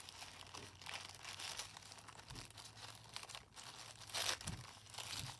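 Tissue paper rustling and crinkling as hands unfold and lift it, in soft irregular rustles with a louder crinkle about four seconds in.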